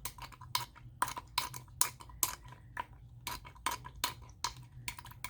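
Pump top of a small plastic spray bottle pressed over and over, clicking about three times a second, as a clogged nozzle is worked to get it spraying again.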